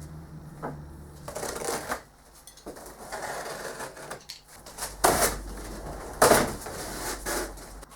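Cardboard shipping box being handled: flaps folded back and the carton scraped and rustled, with two louder scraping rubs about five and six seconds in.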